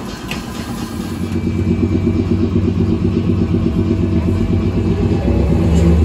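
Kumamoto City Tram 8500-series car with nose-suspended traction motors and direct control, heard from inside the car while running: a steady motor-and-gear hum that grows louder from about a second in.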